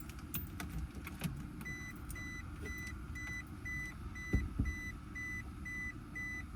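A Toyota Prius's in-car warning beeper sounding a steady row of short high beeps, about two a second, starting a little under two seconds in. A couple of dull thumps come from inside the car about midway.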